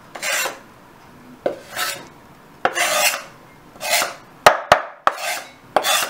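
Knife blade scraping minced garlic off a wooden cutting board, in repeated short strokes about one a second, with two sharp taps about four and a half seconds in.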